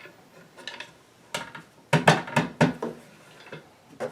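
Wooden sewing-machine cabinet and its folding mechanism being knocked and shifted by hand. There are a few light knocks, then a burst of loud clattering knocks about two seconds in, as a part catches and will not fold away.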